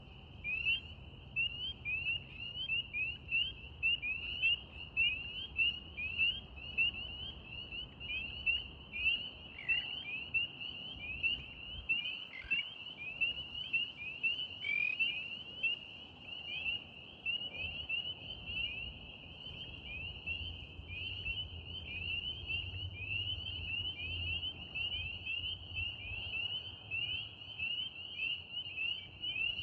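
Chorus of spring peepers: many frogs giving short, high, rising peeps, several a second and overlapping without a break.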